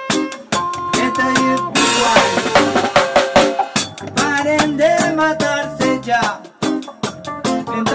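Reggae band playing: a drum kit beats out a steady rhythm with rimshots and a cymbal crash about two seconds in, over guitar and bass.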